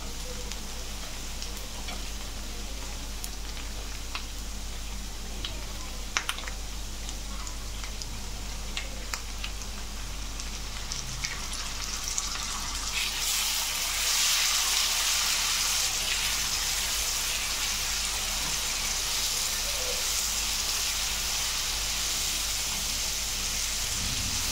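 Onions frying in hot oil in a nonstick pan, a steady sizzle with a few clicks of the spatula against the pan. About halfway through, crushed tomato goes in and is stirred, and the sizzle gets louder and hissier.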